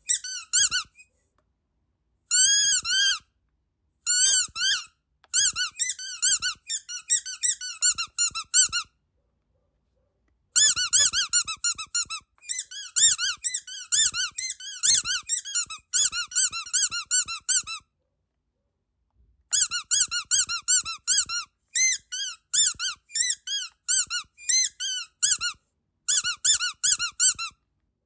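Rubber duck squeaky dog toy squeezed repeatedly in quick runs of squeaks. Each squeak is a short high note that rises and falls, and the runs break off a few times for a second or two.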